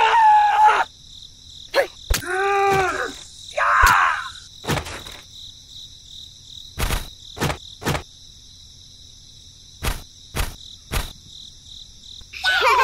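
Steady high cricket chirring as a background bed, with about ten short knocks spread through it, like plums dropping onto sand. In the first four seconds come a few short squeaky pitched sounds that glide up and down.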